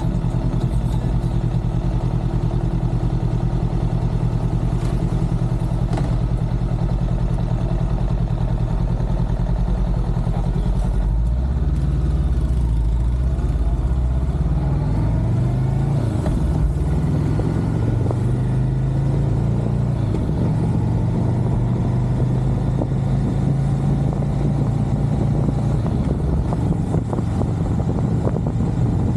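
Motorcycle engine idling steadily for about the first ten seconds, then pulling away and accelerating, its pitch rising and falling as it goes up through the gears.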